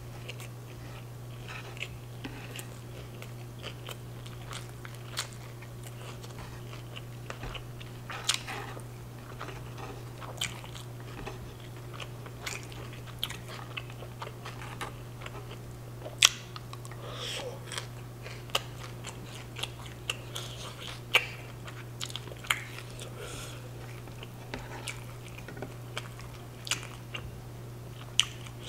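Close-miked chewing of a mouthful of street taco, with wet mouth clicks and crunches at irregular moments over a steady low hum.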